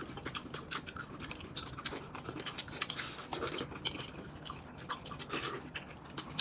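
Close-up eating sounds: wet chewing and lip smacks from people eating a juicy fruit and noodles, a quick irregular run of small clicks.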